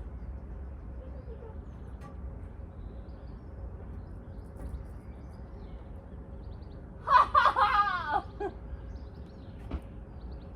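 Outdoor background with a steady low rumble; about seven seconds in, a short loud vocal call whose pitch wavers up and down.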